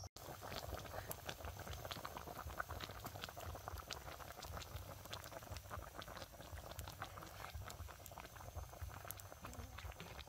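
Chicken broth bubbling at a boil in a pot over an open wood fire, a steady dense patter of small pops and crackles.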